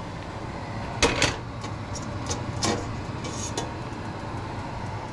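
Stainless steel colander and stockpot handled and set on the stovetop: a string of sharp metallic clinks and knocks between about one and three and a half seconds in, over a steady low hum.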